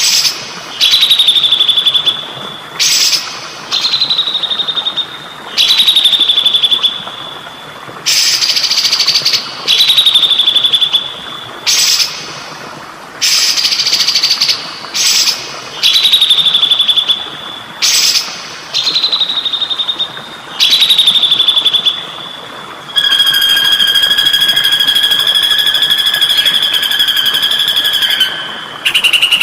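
A songbird repeating one call about every two seconds: a short rough burst that drops into a held high whistle. Near the end it switches to one long unbroken high trill lasting about six seconds. Under it runs a steady trickle of flowing water.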